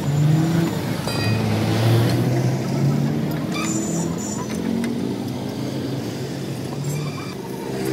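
A vehicle engine running nearby, its pitch drifting slightly, with a few short metallic clinks of hand tools on the truck's wheel hub and a brief high ringing about three and a half seconds in.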